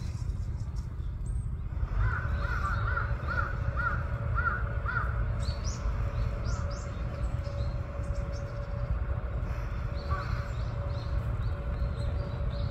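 A crow cawing in a run of about seven caws, beginning about two seconds in, with one more caw near the end. Short high chirps come in between, over a steady low rumble.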